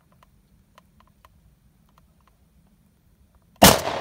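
A few faint ticks, then about three and a half seconds in a single loud shotgun blast from a turkey gun, with a long echoing tail.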